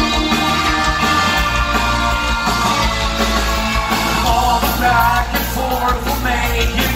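Live rock band playing: strummed acoustic guitar, electric guitar and drums, with a voice singing over it in the second half.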